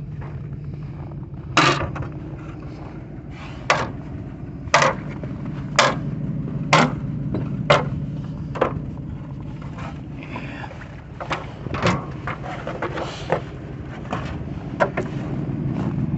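Farmall 706 tractor engine running steadily, with sharp knocks or clanks coming roughly once a second, more irregularly in the second half.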